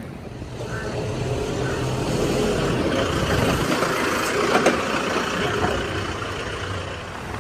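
Heavy diesel engine of construction machinery running steadily, swelling over the first couple of seconds and easing slightly near the end, with a few brief knocks midway.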